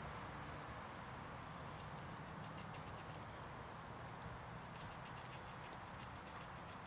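American red squirrel gnawing on a nut: a fast, irregular run of faint, crisp clicks and scrapes from its teeth on the shell, thickest about halfway through, over a steady background hiss.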